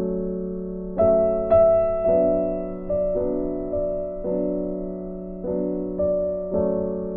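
Background piano music: soft, slow chords, a new chord struck about every second and left to fade.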